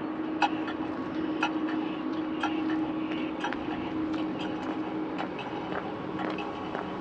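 City street ambience: a steady engine hum from a vehicle, fading after about five seconds, with a sharp tick repeating about once a second.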